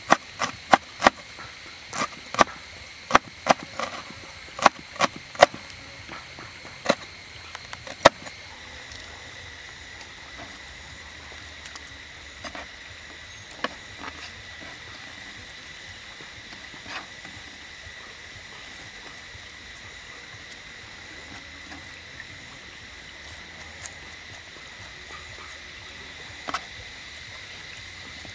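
Cleaver chopping red chilies and garlic on a wooden cutting board: sharp knocks about two a second for the first eight seconds, then only a few scattered knocks. A steady high insect drone runs underneath.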